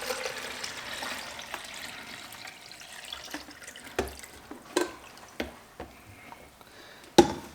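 Water poured from a glass coffee jug into a filter coffee machine's water reservoir, the pouring trailing off over the first few seconds. Then a few light plastic clicks and knocks, and a sharp louder knock near the end.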